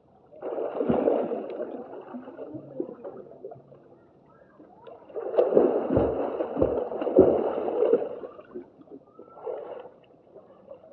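Pool water splashing as a person swims: two loud bouts, one starting about half a second in and lasting a second or so, and a longer one from about five to eight seconds in, with a brief weaker splash near the end.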